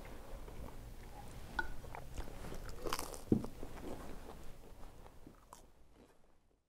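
Faint sounds of people eating at a table: scattered small clicks and taps, fading out near the end.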